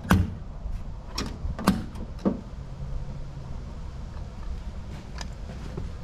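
Parts and tools being handled and set down: a handful of short, sharp knocks and clunks, most of them in the first two and a half seconds and one more near the end, over a low steady rumble.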